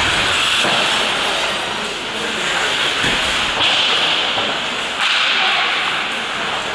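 Ice hockey skate blades scraping and carving across the ice, with sudden louder hissing scrapes about three and a half seconds in and again at five seconds. There is a low thud about three seconds in.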